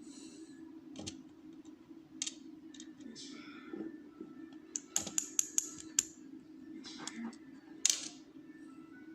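Small metal clicks and taps as lock pins, springs and tools are handled while a rim cylinder lock is taken apart. Single clicks are scattered through, with a quick run of sharp clicks about five to six seconds in, over a steady low hum.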